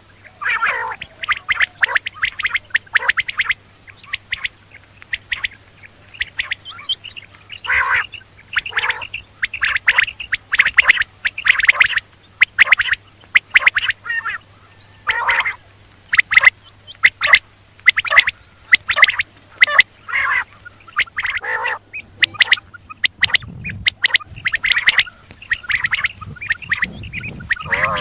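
Quail calling: quick runs of short, harsh notes, bunched into clusters with brief pauses between them.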